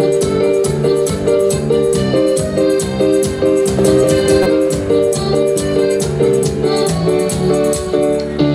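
Live band playing an instrumental passage: an electronic keyboard plays a stepping melody over a steady percussion beat.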